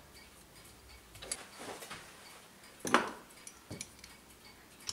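Faint handling of a brass clock mainspring barrel and its parts, with a few light metallic clicks and knocks, the loudest about three seconds in.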